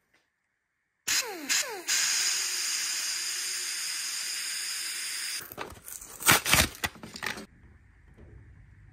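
A steady spraying hiss that starts suddenly about a second in and cuts off after about four seconds, followed by a few sharp clicks and knocks.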